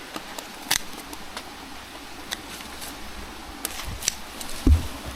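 Scattered sharp clicks from a pair of garden scissors being handled, with a dull thump near the end.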